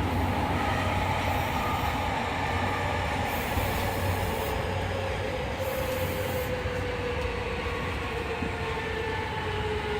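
Fukuoka City Subway 2000-series train running in the tunnel, heard from inside the car: the rumble of wheels on rail with the whine of its Hitachi hybrid-SiC VVVF inverter and WN-drive traction motors. The whine falls slowly in pitch, as the train slows.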